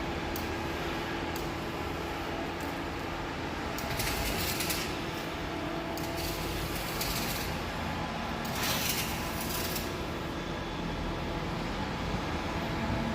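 Flux-cored arc welding: a steady crackling arc over a faint low hum, with louder hissing surges about four seconds in and again around nine seconds in.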